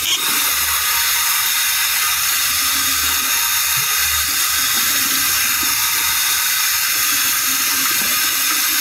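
Bathroom tap running steadily into a sink, with hands splashing warm water onto the face to rinse off a clay mask.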